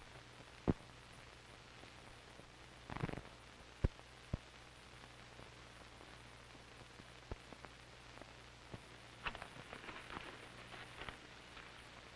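Steady low hum and hiss of an old film soundtrack, broken by a few sharp single clicks, a short crackly burst about three seconds in, and a patter of light crackles and clicks in the last few seconds.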